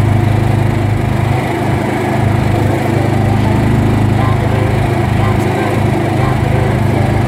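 Small engine of a motor vehicle running steadily, heard from on board as it drives along, with a constant low hum.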